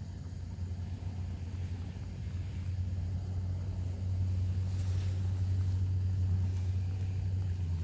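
Portable butane stove burner running at full flame under a pot of water coming back to a rolling boil: a steady low rumble that grows louder about halfway through.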